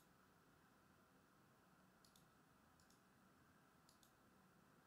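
Near silence: faint room tone with three soft double clicks about a second apart in the second half.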